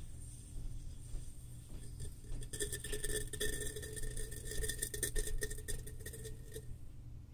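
Butane lighter flame hissing steadily against an aluminium soda can, with a dense run of fast crackling and a faint tone through the middle few seconds.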